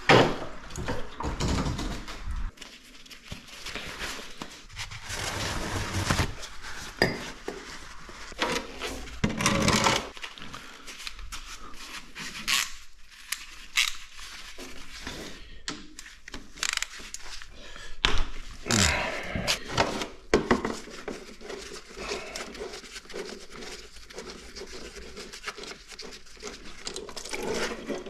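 Metal tools and parts clattering and scraping, with scattered knocks and thunks, as work on a motorcycle begins.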